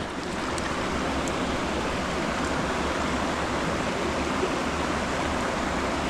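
Mountain stream water flowing steadily.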